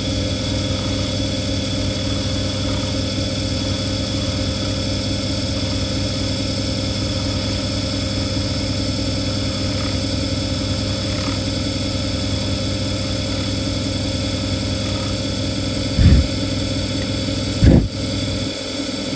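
Cowells watchmakers lathe running steadily with a hand graver held against the spinning work, taking a test cut on the new tool rest. Two short knocks near the end.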